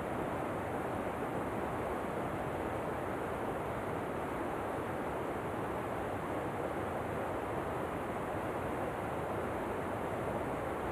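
Waterfall: a steady, unbroken rush of falling water with no change.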